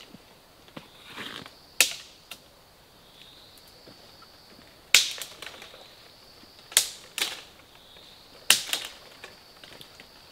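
Sharp cracks of woody branches being snapped or cut: five loud, short snaps at irregular intervals, two of them close together past the middle, with quieter twig crackles between.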